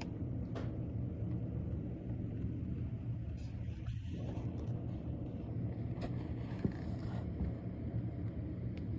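An engine running steadily at a constant speed, a low, even hum.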